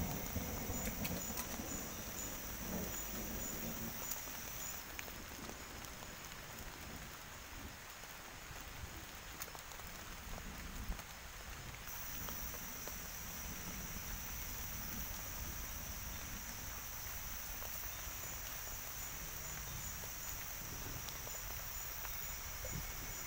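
Wet forest at night after rain: a steady hiss of dripping water, with insects trilling high and steady. The trill changes pitch about five seconds in and again about halfway through. A few soft clicks and drips are scattered through it.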